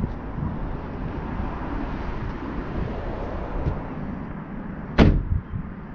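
Steady outdoor background noise with a low rumble, broken by one sharp knock about five seconds in.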